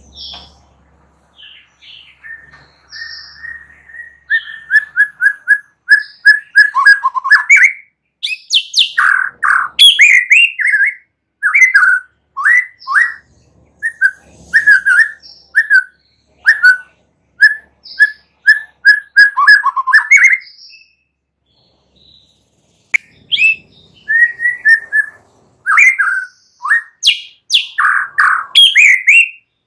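A young wild-caught white-rumped shama singing a long, loud song of clipped whistled notes, rapid repeated phrases and quick up-and-down glides. It starts soft and turns loud about four seconds in, then breaks off for a couple of seconds about two-thirds of the way through before carrying on.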